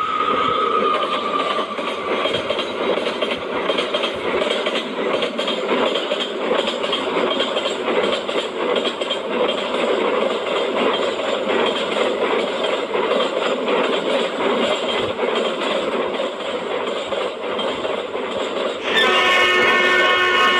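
A train running with a steady noise, with a horn starting to sound about a second and a half before the end and holding on.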